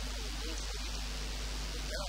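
Steady hiss across the whole range with a constant low hum underneath, holding level throughout.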